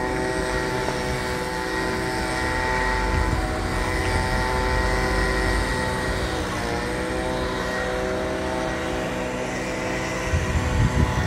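Engine of tree-cutting equipment running steadily at speed, a droning hum of even tones that dips briefly in pitch about six and a half seconds in and again near the end.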